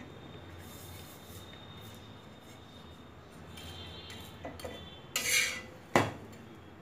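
Metal spatula scraping on a tawa as a sandwich is pressed and turned over: a short rasping scrape about five seconds in, then a sharp knock of the spatula about a second later, over a low steady hiss.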